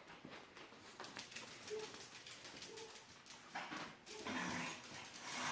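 A dog whining faintly in short high whimpers, among soft clicks and steps.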